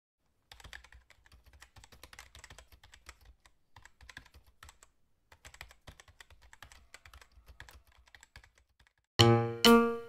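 Computer keyboard typing: rapid faint key clicks in several runs with short pauses. Loud piano-like music starts near the end.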